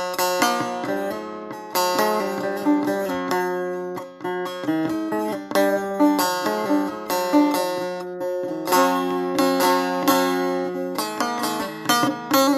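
Saz (long-necked Turkish lute) playing an instrumental passage: a quick plucked melody of many short notes over steady held pitches, with no voice.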